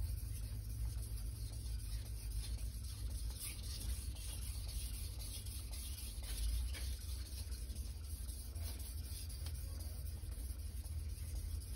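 Steel knife blade rubbing back and forth on a wet sharpening stone, a soft, faint scraping under a steady low hum.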